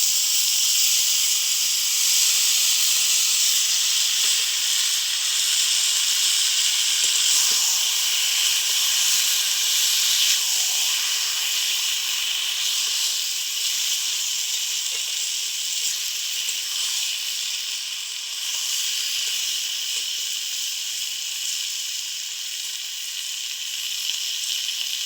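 Freshly added taro greens hissing and sizzling steadily in hot oil in a pan, the hiss easing a little in the second half as the wet leaves cook down.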